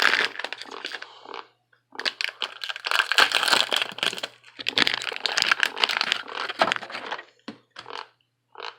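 Packaging of an HP 63 tricolour ink cartridge crinkling and crackling as it is handled and opened, in three long stretches with short pauses, then a few brief crackles near the end.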